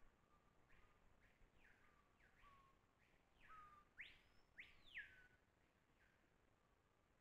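A bird calling faintly in the forest: a series of short notes that slide down in pitch, building to two louder, higher sweeping notes about four to five seconds in, then tailing off.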